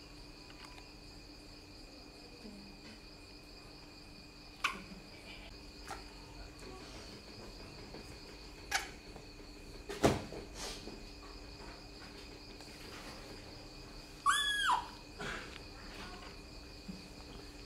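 A baby macaque's single short squeal about fourteen seconds in, rising then falling in pitch. A few sharp clicks come earlier, over a steady high whine.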